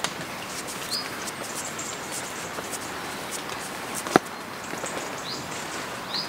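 Light rain pattering, heard as a steady hiss with many scattered drop ticks and one sharper tick about four seconds in. A bird gives a few brief high chirps.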